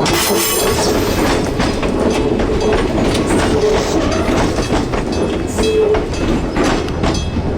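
Echizen Railway train running past close by, its wheels clacking over the rail joints over a steady running noise.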